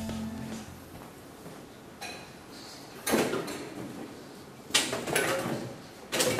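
A few short knocks and clatters of a glass bottle being put into a large terracotta urn, the loudest about three seconds in. Guitar music fades out at the very start.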